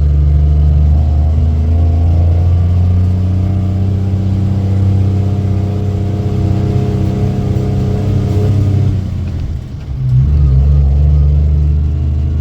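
Cummins M11 diesel of a 2001 International 8100 dump truck pulling hard uphill under a heavy load of trailer and backhoe, its note rising slowly. About nine seconds in the engine briefly drops off as a gear is changed, then pulls again.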